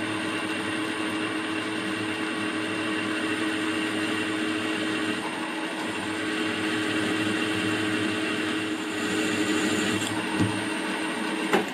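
Milling machine spindle running steadily while a freshly reground 6 mm twist drill with a four-facet grind bores into free-cutting mild steel: an even motor hum with a high whine over a steady cutting noise. The drill is cutting well.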